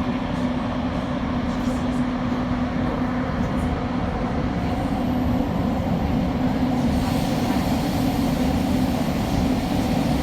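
Inside a Class 345 Elizabeth line train: steady running rumble of the train with a low hum, and a brighter hiss joining in about seven seconds in.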